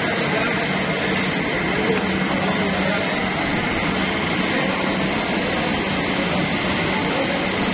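Steady hum and whir of factory machinery, with a faint steady high-pitched tone running through it.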